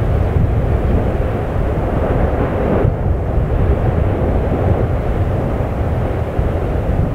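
Deep, steady roaring rumble of an erupting volcano, its crater full of churning lava.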